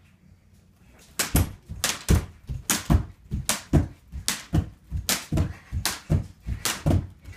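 Jump rope skipping on a wooden floor: the rope slapping the boards and bare feet landing in a steady rhythm of about three strikes a second, starting about a second in.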